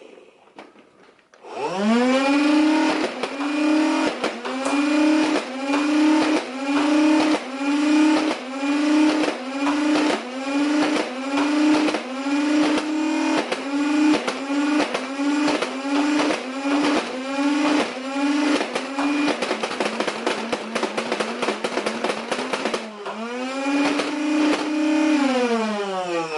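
Nerf Rival Soldier: 76 electric blaster's motor whirring, its pitch dipping and recovering about every two-thirds of a second as it fires balls in a slow, steady rhythm, with clicks along the way. The slow rate comes from the belt-driven feed. Near the end the motor spins down, spins up once more and winds down.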